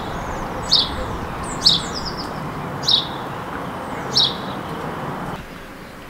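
House sparrow chirping: four short, sharp chirps about a second apart, over a steady background rumble that cuts off near the end.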